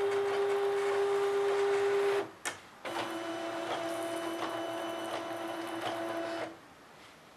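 Silhouette Cameo cutting machine running a cut through paper, its motors whining steadily as the blade carriage and rollers drive the sheet. The whine breaks off with a click a little after two seconds in, resumes at a slightly lower pitch, and stops about six and a half seconds in.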